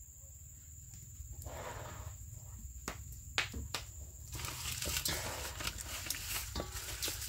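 A hand in a plastic glove mixing marinated fish pieces in a stainless-steel bowl: wet squelching and glove rustling with small clicks, getting busier from about four seconds in, after a few sharp clicks just before. A steady high-pitched tone runs underneath.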